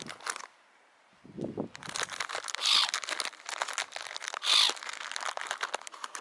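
Plastic bag of bird food crinkling and rustling as it is handled, with two louder crackling bursts midway.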